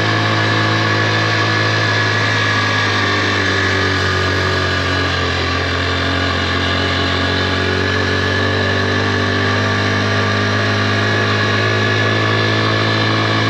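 A 110cc motorbike engine running steadily at an even pitch while riding up a slight climb on the road.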